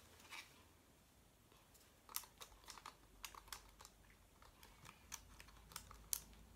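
Faint, scattered small clicks and taps from a Canon EOS M10 camera body being handled and fiddled with, starting about two seconds in.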